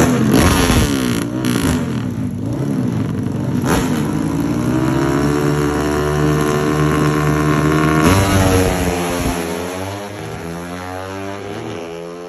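Underbone drag-racing motorcycle engine revved in short blips at the start line, then held at steady high revs. About eight seconds in it launches and pulls away, rising in pitch through several gear changes as it fades down the track.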